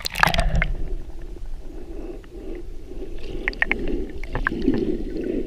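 Muffled gurgling and rumbling of shallow sea water heard with the microphone dipped under the surface, with a splash of entry at the start and scattered small clicks.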